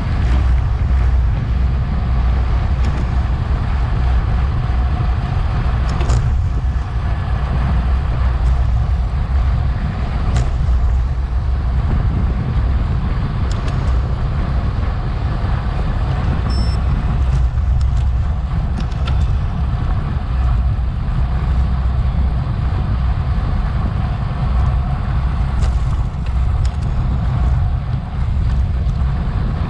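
Wind buffeting the microphone of a bike-mounted action camera at race speed: a steady, heavy low rumble, with a few faint clicks.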